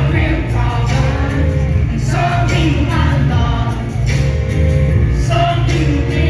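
Loud live band music with a lead singer over strong, steady bass notes.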